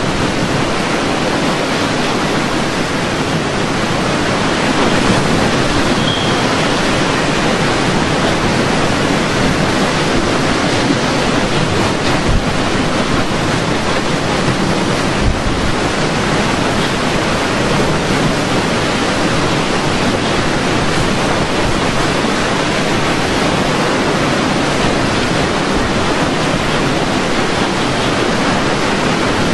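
Hurricane wind blowing hard: a loud, steady rushing noise, with a couple of brief low thumps about twelve and fifteen seconds in.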